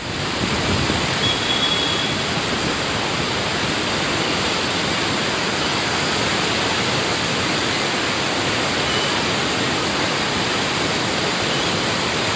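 Floodwater of a swollen river rushing and churning in rapids: a steady, unbroken rushing noise.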